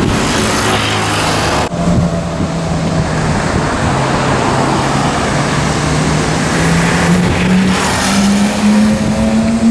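Supercar engine running under traffic noise, its note climbing slowly in pitch through the second half as the car accelerates. The sound changes abruptly just under two seconds in.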